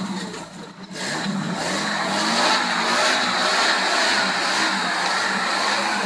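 Modified UAZ 4x4's engine revving hard under load as it claws up a steep mud bank, the tyres churning in the mud. The engine eases briefly, then runs loud and sustained from about a second in.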